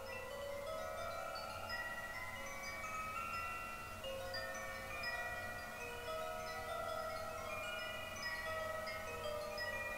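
Wind chimes ringing continuously, many notes of different pitches struck at random moments and overlapping as they fade.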